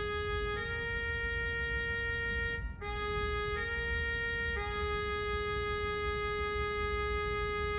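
Notation-software playback of a B♭ trumpet part in a synthesized trumpet sound, one note at a time. There is a two-second note, a brief break, two short notes, then one long note held about four seconds.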